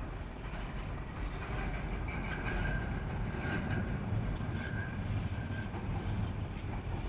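A vehicle passing in the street, with a low rumble that swells over the first couple of seconds. A thin high tone comes and goes through the middle of the pass.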